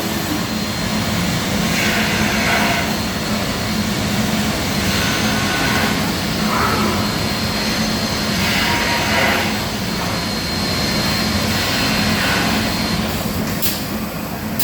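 CNC machining centre milling and drilling furniture panels: a loud, steady machine noise with a low hum and a faint high whine, swelling every few seconds as it works.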